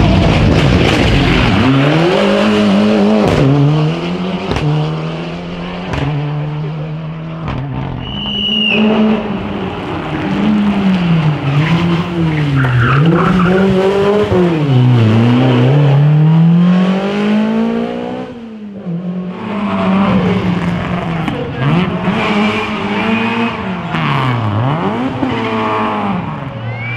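Historic rally car engines revving hard through corners, the pitch climbing and dropping again and again with gear changes and throttle lifts, with tyres squealing as the cars slide.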